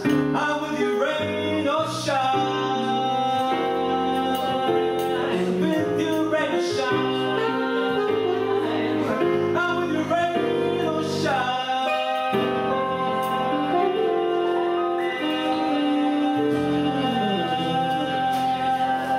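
Male jazz vocalist singing over instrumental accompaniment, holding a long note through the second half.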